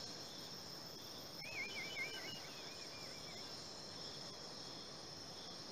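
Faint, steady chorus of crickets, a continuous high trill. From about a second and a half in, a short series of warbling chirps runs for about two seconds.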